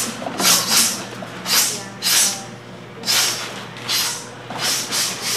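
Taekwondo students performing a form: about seven short, sharp hissing bursts at irregular intervals, the forced exhales and uniform snaps that go with each kick and strike.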